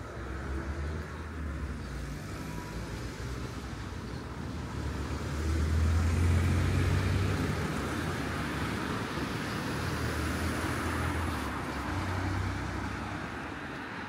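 Road traffic passing: vehicle engine rumble and road noise that swells as a vehicle goes by about six seconds in, with a smaller swell near the end.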